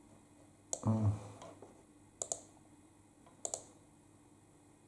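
A few sharp, separate clicks, one a quick pair, of a pen or mouse picking a tool from a drawing program's menu, with a brief hum from a man's voice about a second in.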